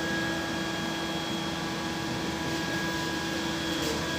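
Steady machinery hum: an even rushing noise with a few constant whining tones, unchanging throughout.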